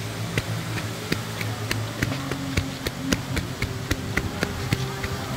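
Rapid, fairly regular ticking, about three to four clicks a second, over a low steady hum.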